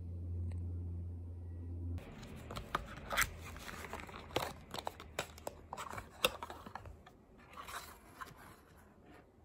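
A low steady hum for about two seconds, which stops abruptly. Then hands handle and open a small cardboard cosmetics box: crinkling, scraping and a string of sharp clicks and taps that thin out near the end.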